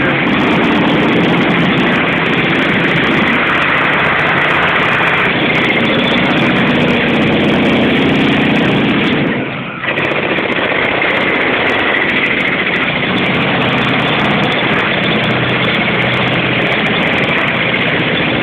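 An engine running steadily, with a brief drop in level a little past halfway.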